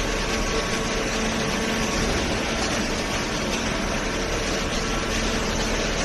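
Cardboard baling machine running: a steady mechanical drone with a low hum and two faint steady tones.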